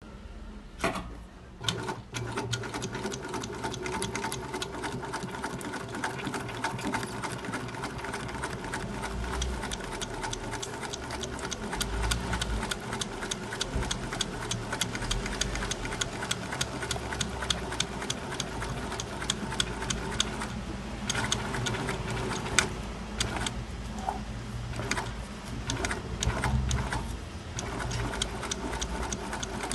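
Side-seam sewing machine running with a rapid, even clicking stitch rhythm, after a few knocks as it starts.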